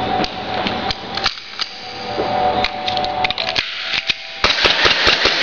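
Irregular clicks and clacks of a KWA Glock 19 airsoft pistol being stripped and reassembled by hand, with parts knocking against each other and the table, coming thicker in the last second.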